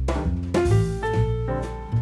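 Background instrumental music: soft jazz with piano, double bass and light drums.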